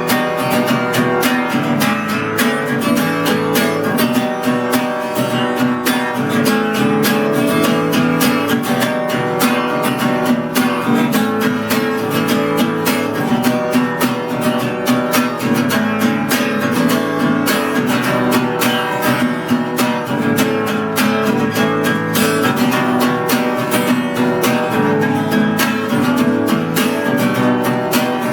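Acoustic guitar strumming steadily in an instrumental passage.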